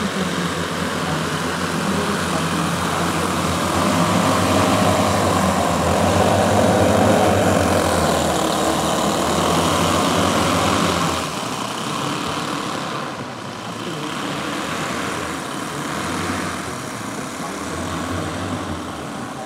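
Twelve four-stroke O.S. 10 cc model aircraft engines running together on a large RC Dornier Do X model as it taxis on grass, a steady multi-engine drone. The sound is loudest in the first half and drops somewhat about eleven seconds in.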